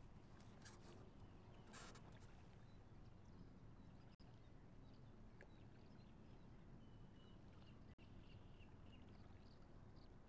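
Near silence: faint outdoor ambience over still water, with a few faint bird chirps. The sound cuts out completely for an instant twice.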